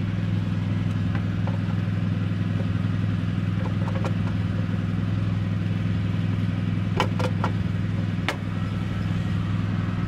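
Yamaha Mio scooter's single-cylinder four-stroke engine idling steadily, running fairly smooth after work on its CVT to cure a growl. A few sharp metallic clicks about seven to eight seconds in.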